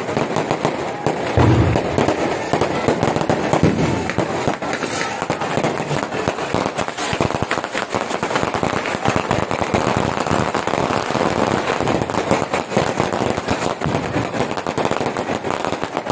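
Fireworks going off in a dense, continuous crackle of rapid overlapping bangs, with a heavier boom about a second and a half in.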